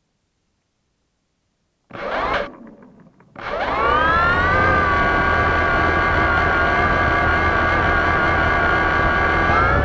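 Electric motors and propellers of a multirotor drone: a short burst about two seconds in, then spinning up from about three and a half seconds to a steady whine of several close pitches, rising slightly near the end.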